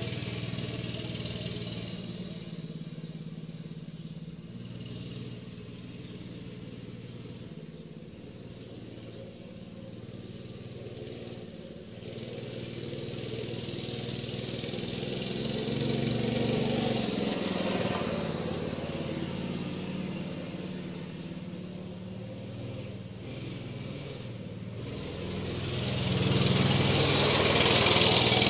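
Baja mini bike's 196 cc single-cylinder four-stroke engine, on a Tillotson carburettor, running smoothly as the bike is ridden away and back: it fades in the middle and grows loud again as the bike comes close near the end. A single short high-pitched tone sounds about two-thirds of the way through.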